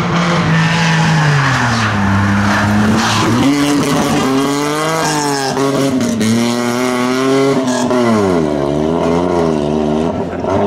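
Small hatchback rally car's engine at high revs as it drives a stage. The engine note drops in the first couple of seconds, then climbs and falls again and again as the driver works the throttle through the bends.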